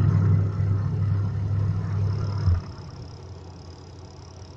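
Electric motor of a twin-tub washing machine running with a steady low hum, then cutting off abruptly about two and a half seconds in; it is the motor just repaired and running again.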